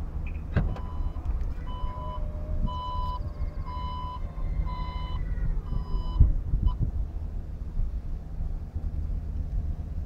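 Škoda Octavia III's electric tailgate opening from the key fob: a click as the latch releases, then a motor hum under five evenly spaced warning beeps, about one a second, as the tailgate rises. It ends with a thump as it stops fully open.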